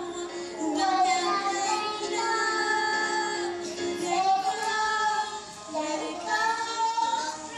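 A five-year-old girl singing a song, holding notes and sliding between pitches.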